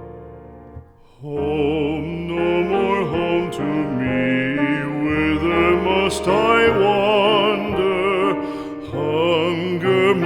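A slow, sad song: a piano introduction fades, and about a second in a solo voice begins singing with vibrato over piano accompaniment.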